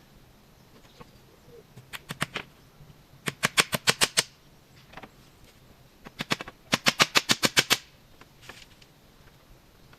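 Three quick runs of sharp knocks or taps: a short run of about four, then about nine, then about a dozen, some eight to ten a second.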